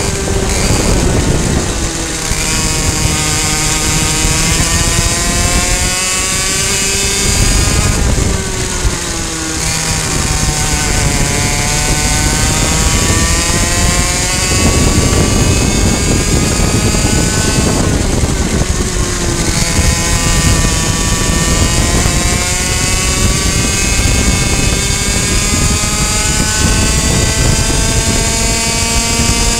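A racing kart's two-stroke engine at high revs, on the throttle. Its pitch falls three times as the kart slows for corners, then climbs again down each straight.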